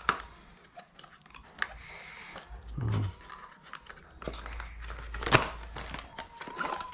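Handling noises while unboxing a small gadget: packaging crinkling and rustling with scattered clicks and taps, one sharper click about five seconds in.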